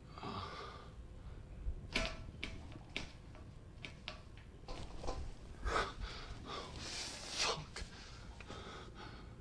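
A man breathing heavily and unevenly, with a breath at the start and another about seven seconds in, among scattered small sharp clicks.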